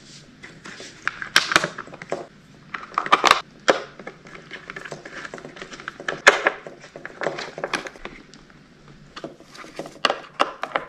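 Scattered clicks, knocks and rattles of a plastic K2 Lil Kat snowboard binding being handled and screwed back onto the board with a hand screwdriver, the sharpest knocks about a second and a half, three seconds and six seconds in.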